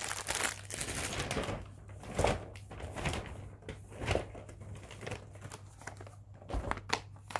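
Plastic wrapping crinkling as a wrapped camera cleaning kit is handled, then scattered clicks and knocks as items are picked up and moved.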